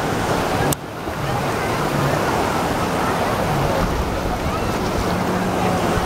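Sea surf washing and breaking in the shallows, a steady noisy rush, with the scattered voices of a beach crowd and wind on the microphone mixed in. The sound dips briefly under a second in.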